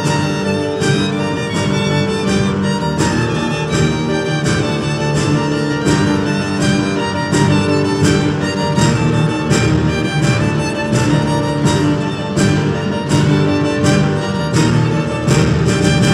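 Background music: a bowed-string melody over a steady beat.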